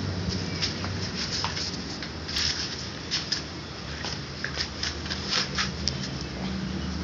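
A cat pawing at and biting a small object on a concrete floor: irregular light clicks and scratches, several in quick succession around the middle.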